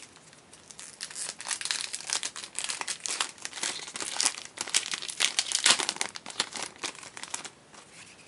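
Foil booster pack crinkling and tearing as it is pulled open by hand: a dense, irregular run of crackles that dies away shortly before the end.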